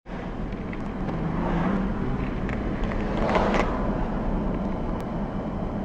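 Ford F-150 pickup driving, its engine and road noise heard steadily from inside the cab, with a brief louder rush about three and a half seconds in.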